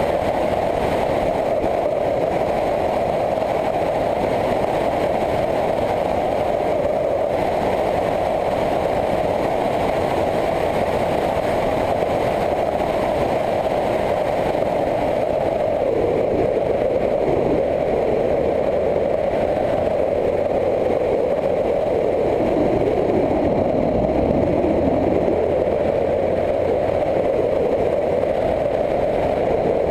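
Motorcycle being ridden at a steady cruising pace, its engine running evenly under a constant rush of wind noise. The sound changes a little a little past halfway as the engine note shifts.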